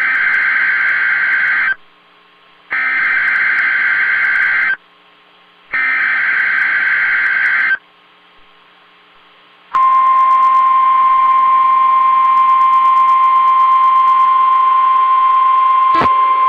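NOAA Weather Radio Required Weekly Test: three screechy bursts of digital SAME header data, each about two seconds long with a second of hiss between them. About ten seconds in, the steady 1050 Hz warning alarm tone starts and keeps going, with a brief click near the end.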